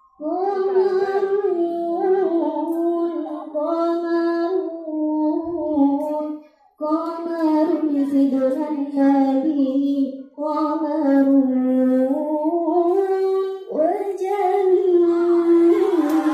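A girl's voice singing an Islamic sholawat through a handheld microphone, unaccompanied, in long held phrases with short breaks between them.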